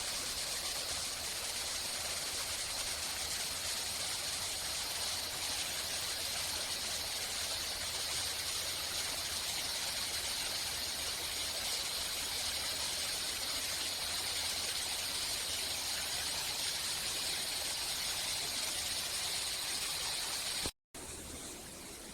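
Steady rush of flowing stream water, a continuous hiss. It cuts out briefly near the end and comes back quieter.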